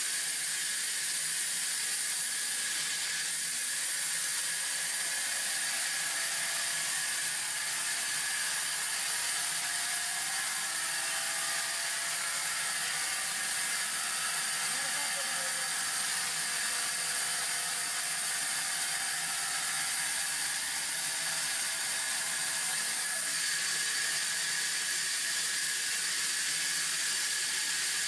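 Log band saw running and sawing lengthwise through a log: a steady hiss with a constant high whine, unbroken throughout.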